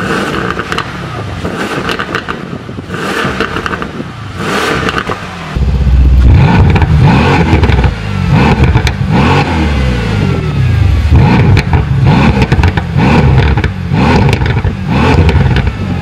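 Mercedes-AMG C63 S twin-turbo V8 running through a straight-through Fi valvetronic cat-back exhaust, revved while standing. It is steadier and quieter at first, then a little over five seconds in it turns much louder with a quick series of rev blips, each rising and falling in pitch, about one a second.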